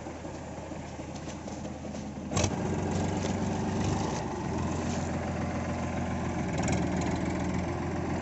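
Powertrac tractor's diesel engine running under load as the tractor drives through deep mud, with a sharp knock about two and a half seconds in, after which the engine is louder and deeper.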